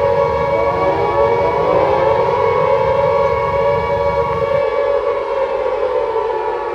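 Warning siren sounding: several steady tones layered together, with rising glides in the first few seconds. A low rumble underneath cuts off suddenly about two-thirds of the way through.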